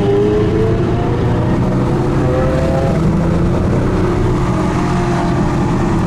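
Car engines running at speed with heavy road noise; the engine pitch rises briefly a few times as the cars accelerate.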